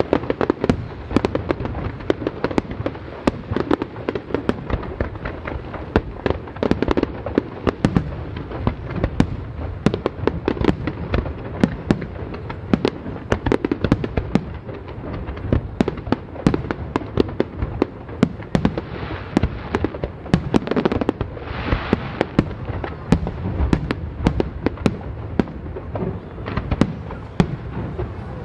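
Fireworks display going off: a dense, unbroken run of sharp bangs and crackles, several a second, over a low rumble.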